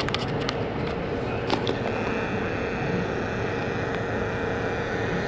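City street background noise: a steady hum of distant traffic and urban ambience, with a few sharp clicks in the first couple of seconds.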